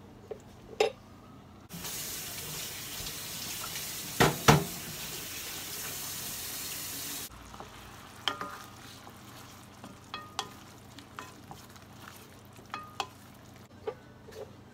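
Pot of chicken, olives and onions in broth sizzling on the stove; the steady sizzle starts and cuts off abruptly, with two loud knocks against the pot in the middle of it. Afterwards a wooden spoon stirring in the stainless steel pot gives scattered clicks and scrapes, some ringing briefly.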